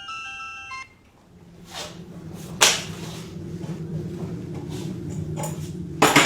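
A short tinkling glockenspiel music sting ends about a second in. Then comes a low steady hum with a few sharp knocks and clatters, the loudest two about two and a half seconds in and near the end.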